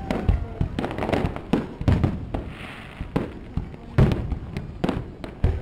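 Aerial fireworks shells bursting overhead in a rapid, irregular string of sharp bangs, about a dozen in a few seconds, with a short crackling hiss in the middle.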